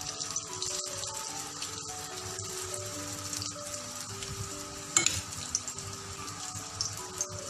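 Cooking oil sizzling steadily in a frying pan as spoonfuls of grated pumpkin batter fry, with one sharp tap about five seconds in. Soft background music runs under it.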